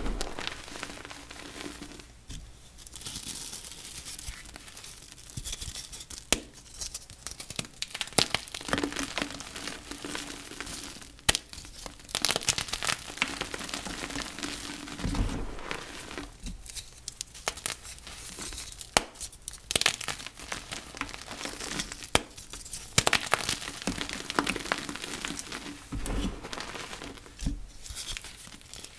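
Blocks of soft, flaky dyed gym chalk being crushed: dense crunching and crackling with sharp crumbly snaps, with a few brief pauses.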